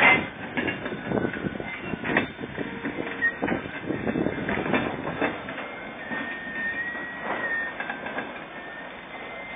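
Irregular metallic clanks and knocks from a derailed hopper wagon and its bogie as it is worked back onto the rails, with a thin high metallic squeal lasting about two seconds past the middle.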